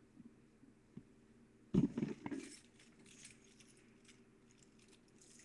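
Handling noise of a phone on a wooden tabletop: one sharp thump a little under two seconds in, then about a second of light clicks and clinks, and a few faint clicks after.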